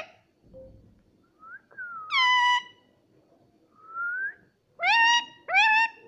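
Indian ringneck parakeet calling: a faint gliding whistle, a loud call about two seconds in, a rising whistle around four seconds in, then two loud rising calls in quick succession near the end.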